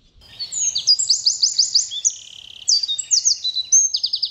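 A songbird singing loudly: a long, fast, varied song of high trills and quickly repeated down-slurred notes, starting just after the beginning and carrying on throughout.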